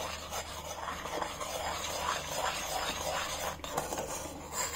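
Steel spoon stirring and scraping around the bottom of a stainless steel saucepan of hot gelatin jelly mixture: a continuous rasping scrape made of many repeated strokes.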